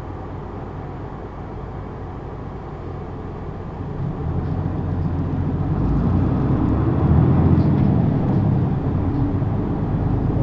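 Isuzu PKG-LV234N2 city bus engine heard from inside the bus, running steadily at first. About four seconds in it builds up and grows louder, as the bus picks up speed.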